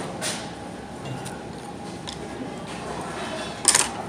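Noodles slurped from a bowl with chopsticks: one short, loud slurp near the end, over a steady restaurant background.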